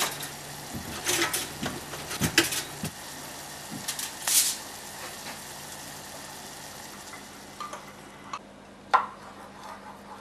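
Kitchen cooking sounds: a few clicks and knocks as English muffins go into a toaster, then a wooden spoon scraping tomato sauce from a glass bowl into a saucepan and stirring it, over a low steady hiss from the pan.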